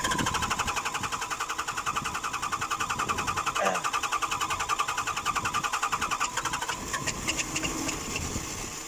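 Isuzu 6BG1 six-cylinder diesel engine being cranked by its starter in a fast, even chug without catching, stopping about seven seconds in. A hard start that the mechanic puts down to air in the fuel system after it ran out of diesel.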